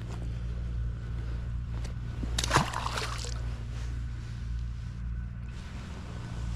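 A single splash of water about two and a half seconds in, over a steady low machine hum.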